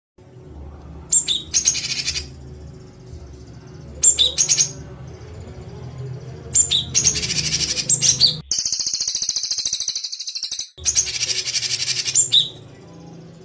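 Songbird giving harsh, rapid-fire 'tembakan kasar' calls in short bursts every two to three seconds, with one longer, denser rattling trill a little past the middle. A low hum lies under the calls.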